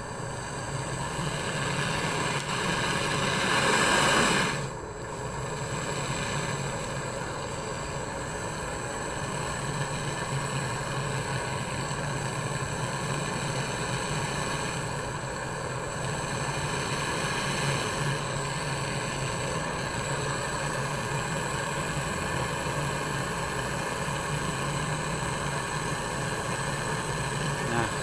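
Gas brazing torch flame hissing steadily as it heats a copper refrigerant pipe red-hot for brazing, briefly louder about four seconds in.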